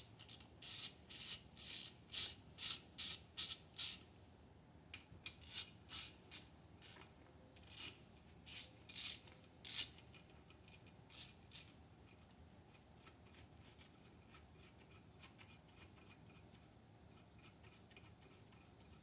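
Rhythmic rasping strokes of hand-tool work, about two a second, growing sparser and fainter after about four seconds and dying away about twelve seconds in.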